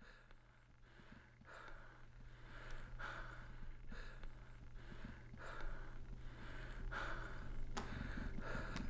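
A man's rapid, heavy breathing, about two breaths a second, fading in and growing louder, over a steady low hum. There are a couple of sharp clicks near the end.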